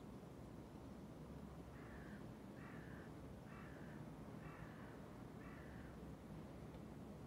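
A crow cawing five times in a row, about a second apart, faint over a low steady background rumble.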